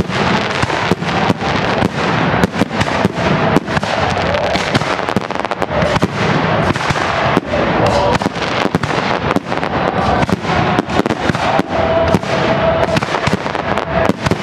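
Fireworks display with many aerial shells bursting in quick succession, a dense run of overlapping bangs and crackling with no pause.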